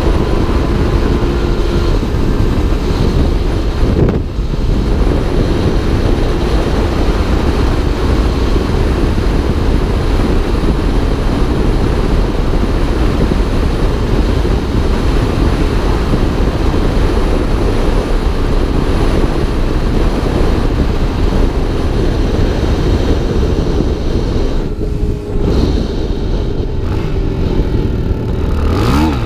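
Motorcycle running at road speed with heavy wind rush on the helmet-mounted microphone. The sound dips briefly twice, and the engine note rises near the end as the throttle opens.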